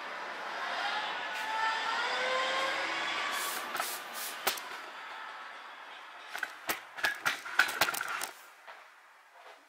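Large cardboard box being shifted about: a scraping squeal that wavers in pitch for about five seconds, then a quick run of knocks and taps against the box.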